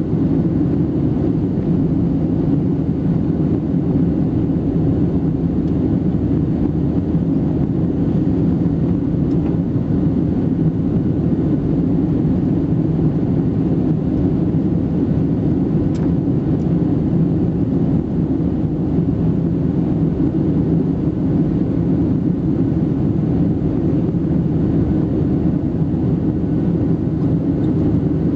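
Steady engine and airflow noise of a Boeing 737-700 with CFM56-7B turbofans, heard from inside the passenger cabin: a loud, even rumble that does not change.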